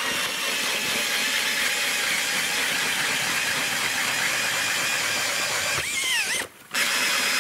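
Cordless drill spinning a hand ice auger through an adapter, drilling a hole in the ice: a steady motor whine over the grinding of the blades. About six seconds in the motor slows, cuts out for a moment, then starts again.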